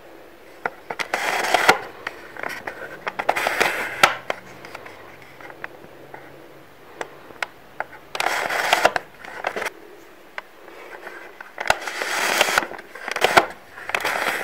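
Plastic View-Master viewer being handled: several short bursts of scraping and clicking as it is held and its advance lever is worked to change the reel picture.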